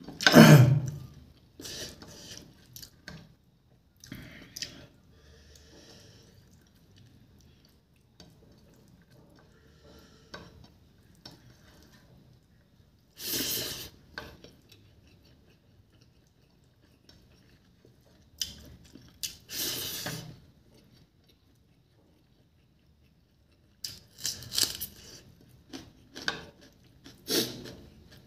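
A person eating chicken feet and rice with bare hands: scattered short bursts of plate clatter and scraping as the fingers work the rice on the plate, with chewing between them and quiet gaps.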